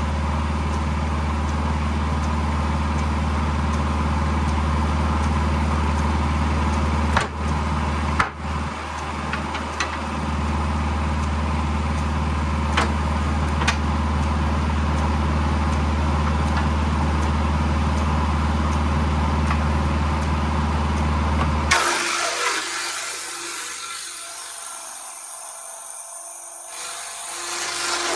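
Tractor-PTO-driven sawmill edger running, with a board being fed through its saws: a steady low hum with a few sharp knocks. About 22 seconds in the low running sound cuts off abruptly, and what is left fades away.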